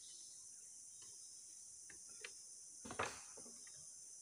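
Steady high-pitched chorus of forest insects, with a few faint ticks and one sharp knock about three seconds in, wooden poles knocking against a heavy log.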